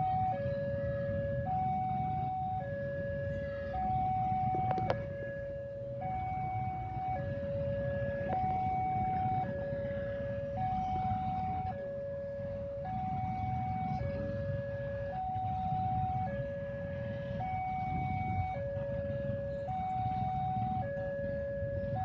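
Railway level-crossing warning alarm sounding a steady two-tone chime, a higher and a lower tone taking turns for about a second each, over a low rumble.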